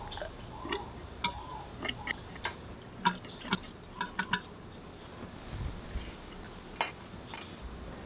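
Metal tools and parts clicking and clinking in irregular taps, some with a short ring, as hands work on a scooter's front fork.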